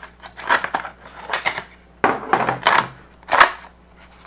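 Cardboard packaging being handled on a table as small power cords are taken out of their box: a series of rustles and scrapes, with one sharp click about three and a half seconds in.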